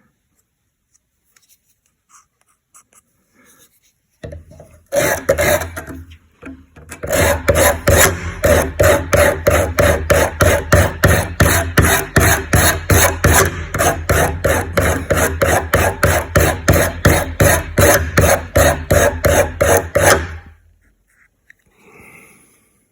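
Pottery trimming tool rubbed back and forth on a clamped EZE-Lap diamond hone, sharpening its edge: a fast, even run of grinding strokes, about three a second, that starts a few seconds in and stops near the end.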